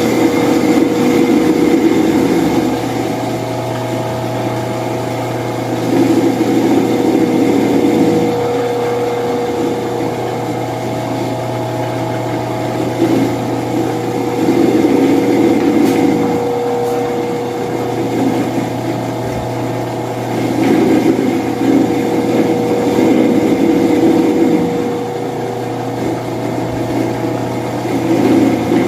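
Britânia/Philco 155 W electric fan running, a steady motor hum with the rush of the spinning blades, which swells and eases every few seconds.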